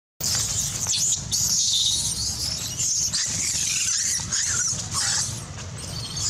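Baby long-tailed macaque screaming in high-pitched, drawn-out squeals with hardly a break, easing off about five seconds in: a distress cry.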